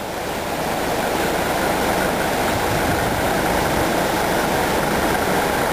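Steady rumbling noise of a vehicle in motion, with a constant hiss and low rumble.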